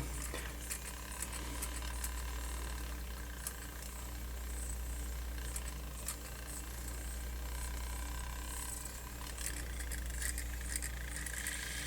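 Sony MZ-N420D MiniDisc mechanism faintly whirring, with scattered small clicks and rattles, as it struggles to spin the disc: the disc can't rotate properly.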